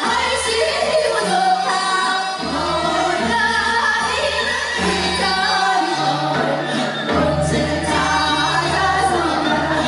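Several women's voices singing a Gyeonggi minyo folk song together, in wavering, ornamented melody lines over low sustained accompaniment notes that shift every second or so.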